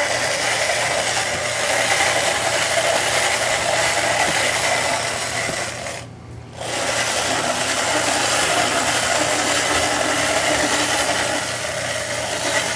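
Electric motor and gears of a corded, battery-powered walking toy elephant running with a steady whir as it walks and swings its trunk. It stops briefly about six seconds in, then starts again.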